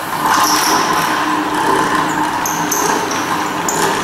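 Hand-cranked Wimshurst machine running: its two counter-rotating discs spinning on belt-driven pulleys with a steady mechanical whir.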